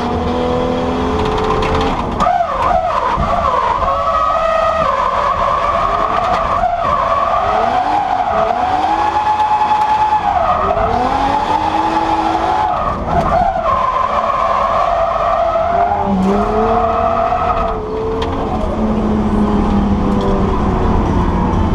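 Nissan Skyline R34 drift car heard from inside the cabin: the engine revs hard and is held high for long stretches while the tyres skid and squeal, its pitch dropping and climbing again several times between slides.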